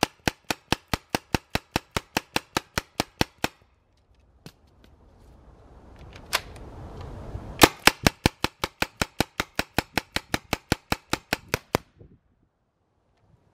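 Tippmann TMC paintball marker firing in semi-automatic strings: a fast run of about six shots a second, a pause broken by two single shots, then a second fast run of shots.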